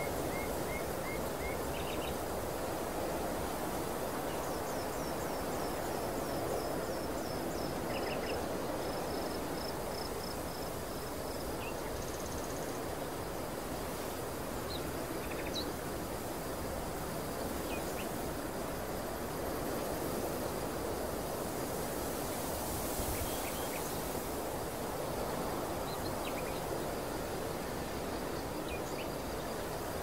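Steady wind blowing across an open grass field, with small birds chirping now and then above it; a quick run of high, repeated notes comes about four to ten seconds in.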